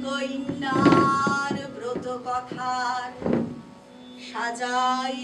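A voice singing long, held notes over a steady drone, with a single thud a little over three seconds in.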